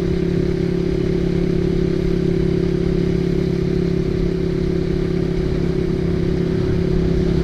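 Motorcycle engine, an old Honda CB150R single with an aftermarket racing silencer, running at a steady speed while riding, heard from a helmet-mounted camera with wind and road rumble underneath. The engine note holds at one pitch, with no revving.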